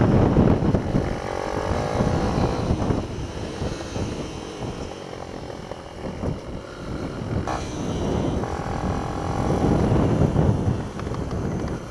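Small mini-bike engine running hard under the rider, its pitch rising and falling with the throttle through the corners, with a low rumble of wind on the microphone. Loudest near the start and again about nine to ten seconds in, easing off in between.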